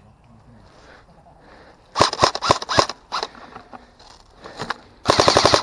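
Airsoft rifles firing: after about two quiet seconds, a short rapid burst, a few single shots, then a second rapid full-auto burst near the end.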